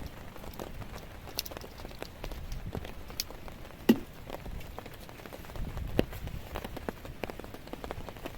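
Raindrops striking a surface as scattered, irregular drips. A louder knock comes about four seconds in and another about six seconds in.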